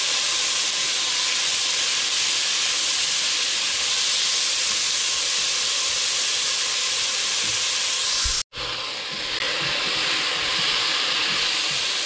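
Diced tomato, onion, garlic and ginger sizzling steadily in hot cooking oil in a stainless steel pot while being stirred with a spatula, the sauté stage of the dish. The hiss breaks off for an instant about eight and a half seconds in.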